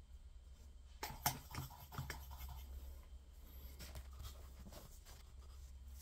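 Hands handling tools and wire at a soldering bench: a burst of clicks and scraping about a second in, the sharpest a moment later, then lighter scratches, over a steady low hum.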